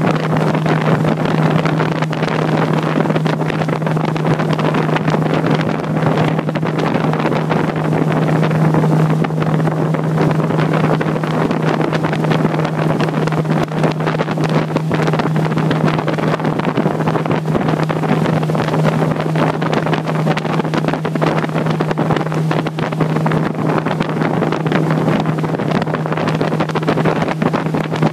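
A motorboat's engine running steadily underway, a constant low hum held on one note without change in speed.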